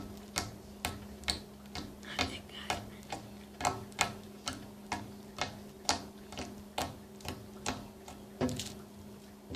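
Slime being squeezed and pressed by hand, making a steady series of short, sharp clicking pops, about two a second.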